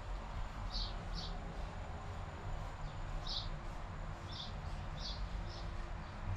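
A small bird chirping: about seven short, high chirps at irregular intervals, over a steady low background rumble.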